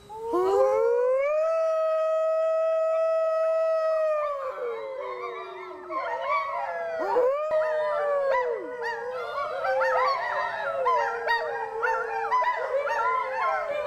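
A pack of wolves howling. One wolf opens with a long howl that rises, holds steady for about four seconds and falls away; from about six seconds in, more wolves join, their howls overlapping in a chorus of quick rising and falling notes.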